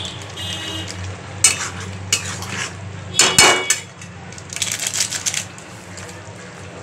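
A spatula knocking and scraping against a metal cooking pot several times, the loudest clatter a little past the middle, then a brief crinkling of a spice packet, over a steady low hum.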